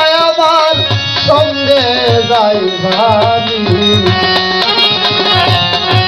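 Baul folk song: a harmonium holds the melody over drums keeping a steady beat, while the male singer draws out long, wavering held notes between sung lines.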